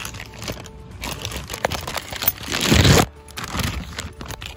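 Clear plastic bag crinkling and rustling as it is gripped and handled, in irregular bursts, the loudest about three seconds in.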